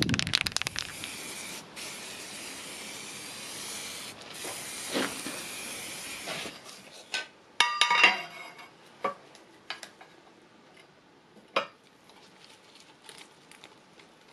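Aerosol spray paint can hissing in three spurts over about six and a half seconds. Then a few sharp metallic clinks and knocks, the loudest a cluster about eight seconds in, as a steel strip is set against a cast iron frame. Faint small ticks and scrapes follow.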